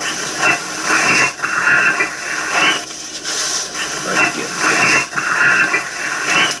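Loud hiss from an amplified audio recording, with a faint, garbled voice-like sound swelling out of it several times. It is presented as an EVP, a ghost voice said to say "What the heck happened to me?"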